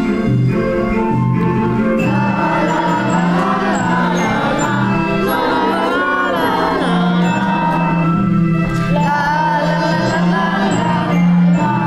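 A group of children singing a song together in unison over instrumental accompaniment with sustained low notes.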